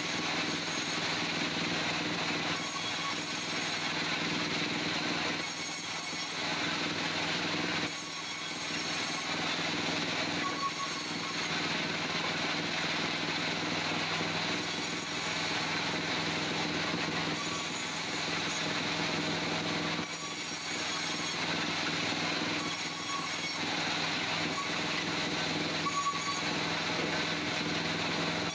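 Wood-Mizer band sawmill running, its blade cutting through a log over a steady engine hum, with a high hiss that comes and goes every second or two.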